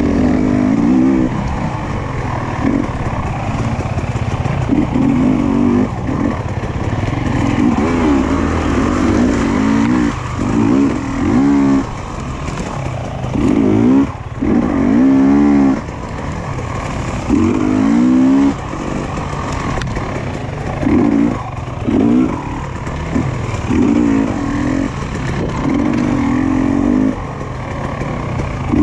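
Dual-sport motorcycle engine being ridden off-road, its revs climbing and falling back about a dozen times as the throttle is opened and closed.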